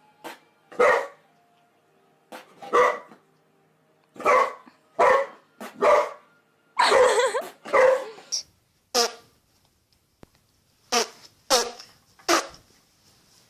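A dog barking in short separate barks, about a dozen with gaps between them, one longer run of barking near the middle.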